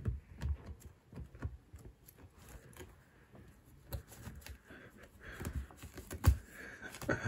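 A cat's paws and claws scuffling on stair carpet and against a feather wand toy as it bats and tears at the feathers: irregular scratchy clicks and soft thumps, with a louder thump near the end.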